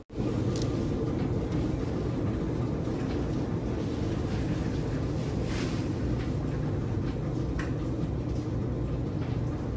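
Dexter T900 commercial front-load washer running mid-cycle: a steady low hum and rumble with a few faint ticks.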